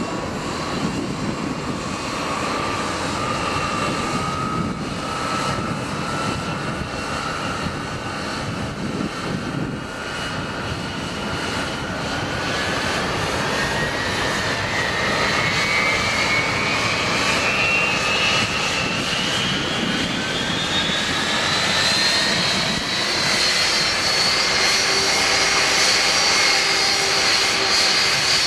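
Boeing 757 jet engine spooling up during engine start: a whine that rises steadily in pitch for over twenty seconds, over a growing rush of engine noise, then levels off as the engine settles at idle.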